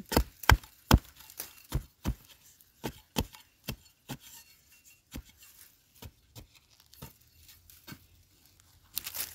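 Digging tool striking into dry, stony soil over and over to dig out a wild yam tuber. The strikes come about two a second at first, then further apart, with a short burst of scraping and loose earth near the end.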